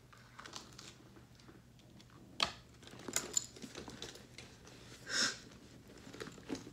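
Rummaging in a leather handbag: small rustles and clicks of things being moved about inside it, with a sharp click about two and a half seconds in and a short swish around five seconds.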